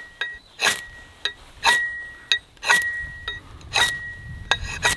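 A ferrocerium rod is scraped down the square, unrounded lower edge of a Fox camping hatchet's steel head as a fire-steel striker. There are about five sharp scrapes roughly a second apart, and each leaves the head ringing with a clear high tone.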